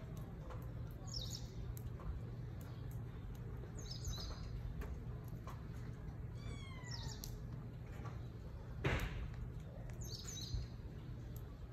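Small birds chirping in short high phrases every few seconds, one a quick run of notes falling in pitch, over a steady low background hum. A brief louder noise breaks in about nine seconds in.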